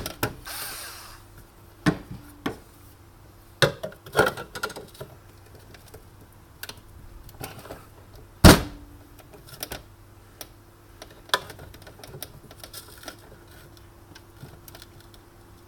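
Irregular clicks and knocks of tools and plastic and metal parts being handled while an espresso machine is taken apart, with one loud knock about eight and a half seconds in.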